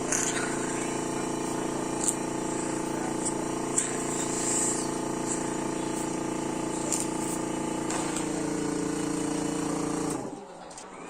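Cough assist machine running a therapy cycle: a steady blower hum with a few sharp clicks. Its pitch shifts about eight seconds in, and it cuts off near the end. The machine forces air into the lungs and then sucks it back out to make her cough, loosening what is thought to be phlegm blocking the airway.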